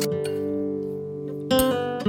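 Background music: acoustic guitar notes ringing out, with a new chord plucked about one and a half seconds in.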